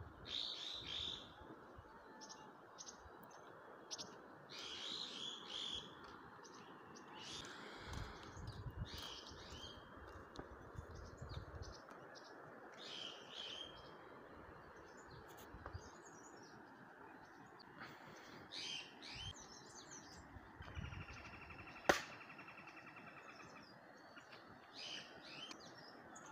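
Small birds chirping faintly and intermittently over a steady background hiss, with a few soft low rumbles and one sharp click about three-quarters of the way through.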